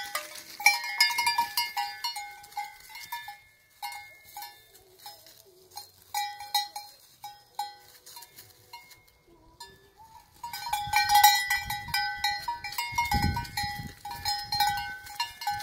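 Sheep's neck bells (cencerros) clanking irregularly as the sheep move and graze, each strike ringing on briefly. The clanks are sparse for a few seconds in the middle, then come thick and fast from about ten seconds in.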